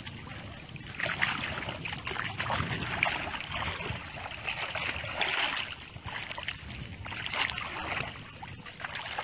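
Shallow water splashing and sloshing in irregular surges as hands work through it beside floating banana trunks.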